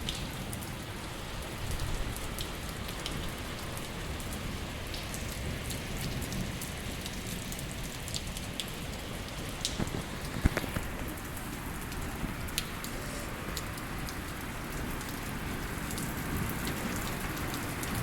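Steady rain falling, with many scattered drops tapping sharply on a surface; one louder tap comes about ten seconds in.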